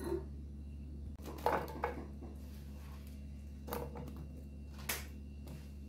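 A few short, soft knocks and clatters of cut guava pieces being handled and dropped into a bowl, over a steady low hum.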